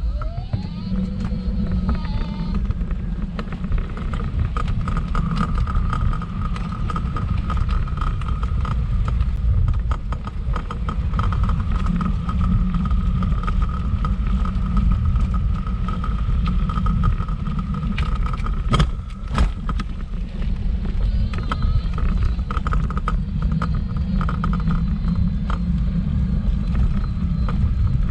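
A wheelchair rolling over wooden boardwalk planks and then tarmac: a steady low rumble from the wheels with a steady high whine over it and scattered small rattles, and two sharp knocks a little past two-thirds of the way through.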